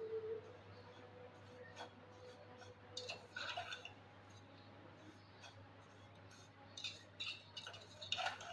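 Steel skimmer scraping and clinking against a steel pot while vermicelli is stirred, with the dry strands rustling; short strokes come in a few bunches, near the start, about three seconds in, and near the end.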